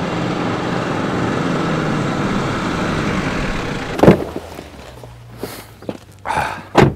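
An off-road SUV's engine running steadily, then a car door shuts with a loud thud about four seconds in, followed by smaller handling noises and a second door thud near the end.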